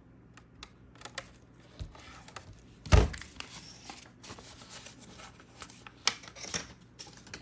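Hands handling vinyl wrap pieces, their peel-off backing sheet and the plastic charger: scattered small clicks and paper-like rustling, with one loud thump about three seconds in.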